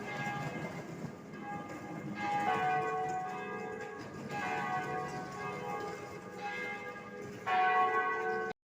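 Church bells ringing: several bells strike in turn, their tones overlapping and ringing on, with a louder strike near the end. The sound cuts off suddenly just before the end.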